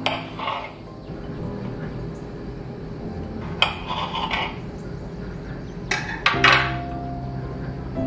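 Kitchen knife slicing kiwi and strawberry on a glass cutting board: a few sharp clicks of the blade meeting the glass, each with a short scraping slice, about four in all, two of them close together near the end. Soft background music underneath.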